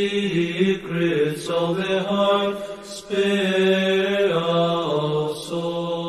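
Unaccompanied sung chant: voices hold long notes that step to a new pitch every second or so.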